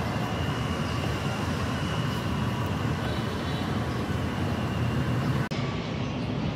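Steady street traffic noise, a low rumble with hiss, briefly cut off about five and a half seconds in.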